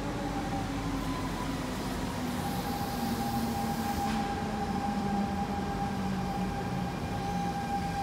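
Siemens C651 electric multiple unit moving along the platform. Its drive gives a whine of several steady tones, the lower one sliding slightly down in pitch. A hiss builds and cuts off sharply about four seconds in.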